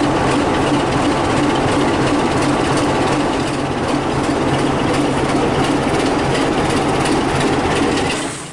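BR Class 25 diesel locomotive D7535's Sulzer six-cylinder engine running steadily under load as it draws its train away from the platform, with faint clicking from the wheels on the track. The sound fades away sharply at the very end.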